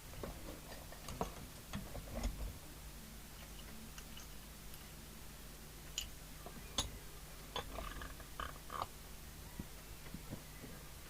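Irregular small clicks and taps of equipment being handled and connected on a workbench, over a steady low hum.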